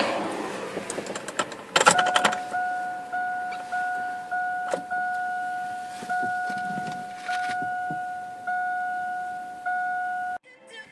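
Keys rattling in the ignition, then the truck's dashboard warning chime dinging over and over, about once a second, until it cuts off suddenly near the end as the ignition is switched on.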